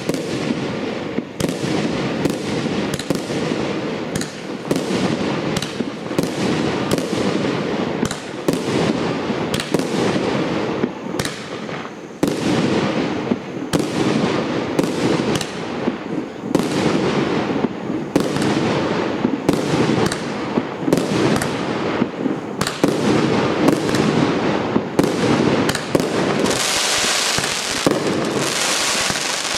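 Piro-Kaskad 'Artillerymen' PKU895 firework cake firing a rapid, unbroken string of shots, with a stretch of brighter hiss near the end.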